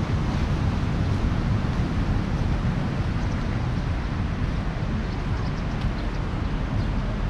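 Steady rumble of ocean surf along a beach, mixed with wind buffeting the microphone.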